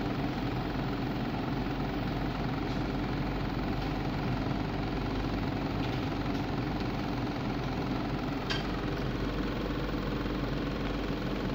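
ISA T3000 substation test set running with its high-voltage output energised: a steady electrical hum with a fan-like whir. A faint click comes about eight and a half seconds in.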